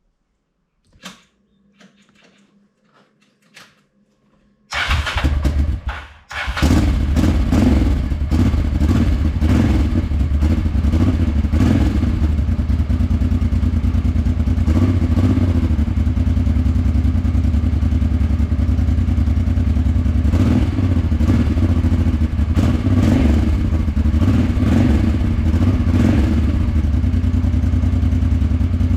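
Honda Transalp 600's V-twin engine breathing through a newly fitted Arrow Dakar exhaust, started up about five seconds in after a few faint clicks, faltering for a moment, then running steadily.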